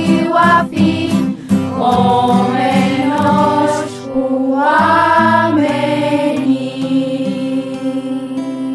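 A choir of schoolchildren sings the last lines of a song with instrumental accompaniment. After a rhythmic opening it moves into long held notes and ends on a sustained final chord.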